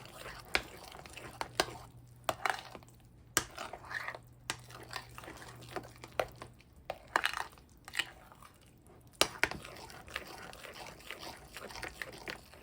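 A utensil stirring thick, creamy mashed potatoes in a pot: wet squelching with irregular knocks and clinks against the pot.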